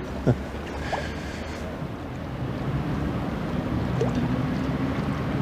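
Wind buffeting the microphone by the river, with a low steady hum underneath that grows slowly louder from about halfway.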